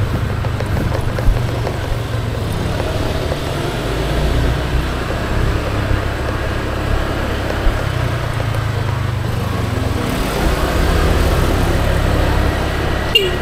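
Honda scooter's single-cylinder engine running at low road speed, with engine speed easing up and down, over road and wind noise. One short sharp click near the end.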